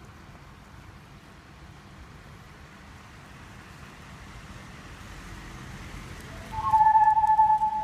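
Corrugated plastic whirly tube toy being whirled: a faint rushing that slowly grows, then about six and a half seconds in it suddenly sounds a loud steady whistling note with a fainter overtone above it.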